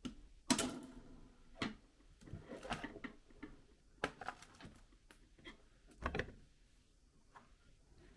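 A screwdriver clicking and scraping on the small screws holding a laptop motherboard, in irregular short clicks and rasps with an occasional sharper knock.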